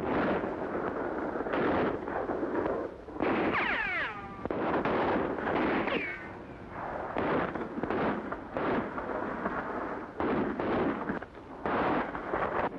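Gunfight on an old film soundtrack: repeated gunshots about once a second, with whining bullet ricochets falling in pitch a little before the fourth and the sixth second.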